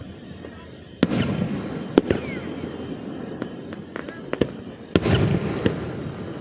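Aerial fireworks bursting: three loud booms, about a second in, at two seconds and near five seconds, each trailing off in a low rumble, with smaller cracks and pops in between.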